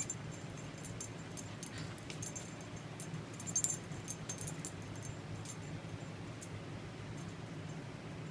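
Small dog's collar tags jingling in short, irregular clicks as it paws and digs at a blanket, over a steady low hum.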